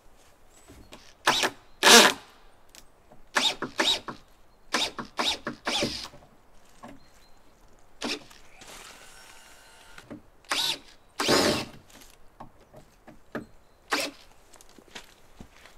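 Cordless drill driving screws into the timber frame, running in a series of short bursts with pauses between them.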